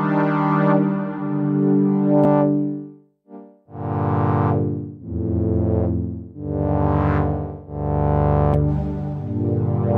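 Sequential Pro 3 analog synthesizer playing a pad patch: a run of sustained chords, each swelling in and brightening, then fading after about a second. There is a short break about three seconds in.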